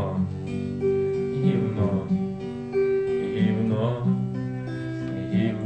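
Acoustic guitar strummed, chords ringing out and changing every second or so.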